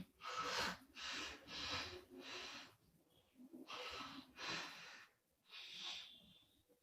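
A woman snoring in her sleep: a run of about seven short, noisy breaths in quick succession, with brief pauses between groups.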